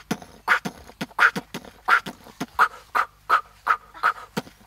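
Goat making a quick, rhythmic run of short throaty sounds, about three or four a second, that sounds like beatboxing.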